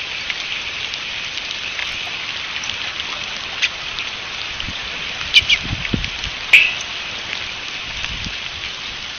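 Steady patter of rain, with several sharp ticks (the loudest about six and a half seconds in) and a few dull low thumps around the middle.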